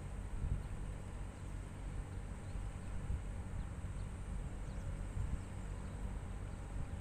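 Faint, steady low rumble of a distant Class 56 diesel locomotive approaching along the line, with a little wind noise.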